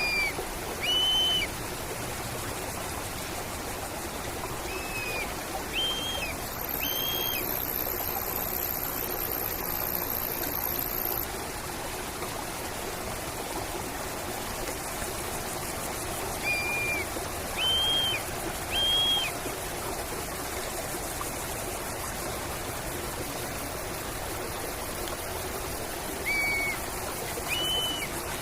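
Nature soundscape of a running stream, with a bird calling in short clear notes, about a second apart in groups of three, several times. A thin high steady tone sounds for a few seconds early on.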